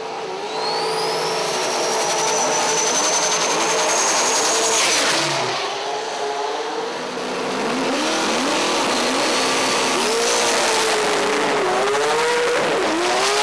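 Single-turbo LS1 V8 drag ute revving hard through a burnout: the engine note climbs and falls under a high turbo whistle that rises over the first few seconds, with the tyres spinning. The engine eases off about five seconds in, then revs up and down again.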